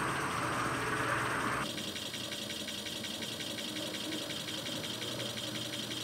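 Series-wound DC forklift motor spinning with no load, run off an almost dead 12-volt battery through jumper cables: a steady electric hum and whine. About two seconds in, a rushing noise drops away abruptly, leaving the hum with a fast, even flutter.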